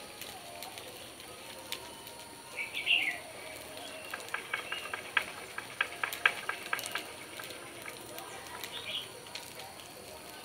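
A bird chirps in two short bursts, about three seconds in and again near the end. In between comes a quick run of light clicks.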